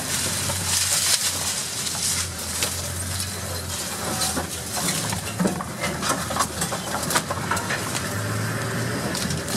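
Open safari vehicle driving along a rough bush track: a steady low engine drone with frequent rattles and knocks from the vehicle.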